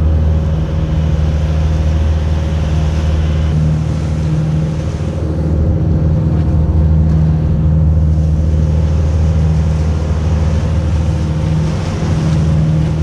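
Outrigger boat's (bangka's) inboard engine running steadily while the boat is under way, a constant low drone with a hiss over it.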